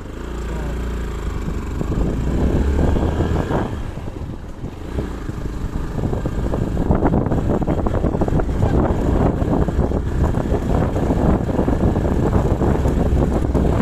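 Motorcycle riding over a rough gravel dirt track, heard from on the bike: wind buffeting the microphone under a constant rattle and clatter from the bumpy surface. It gets louder about two seconds in and busier with knocks from about six seconds in.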